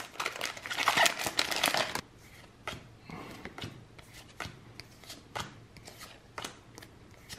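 Foil booster-pack wrapper crinkling and tearing for about two seconds, then soft, scattered flicks of trading cards being slid one behind another in the hands.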